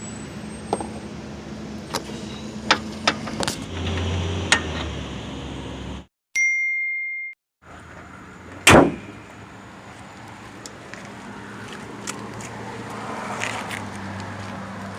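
Scattered sharp metallic clicks and taps of hand tools working on the hood latch bolts from under the front bumper, over a steady low hum. Around six seconds in the sound drops out, leaving a single steady ding-like tone for about a second, and near nine seconds a single loud clang.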